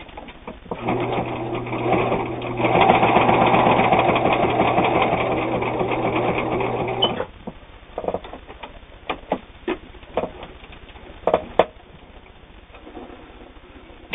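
Viking Husqvarna Optima 150 all-metal sewing machine running: a motor hum with the needle stitching in a fast, even rhythm. It speeds up and gets louder about three seconds in, and stops suddenly about seven seconds in. A few scattered light clicks and knocks follow.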